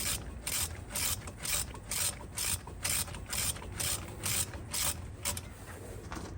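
Half-inch ratchet clicking as it is swung back and forth to tighten a brake caliper pin, about two strokes a second. It stops about five seconds in.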